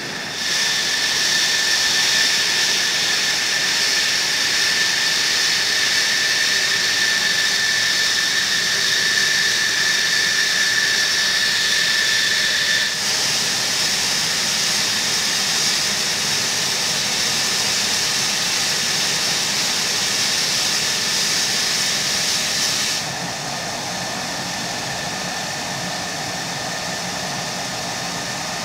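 F-16 jet engine running on the ground, its engine kept running for hot-pit refuelling: a loud, steady rushing hiss with a high whine held on one pitch. About two-thirds of the way through it gets quieter and duller, the whine fading.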